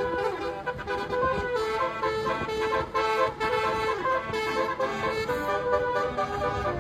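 Bus 'telolet' basuri horn, a set of musical air horns, playing a tune as a quick run of changing notes.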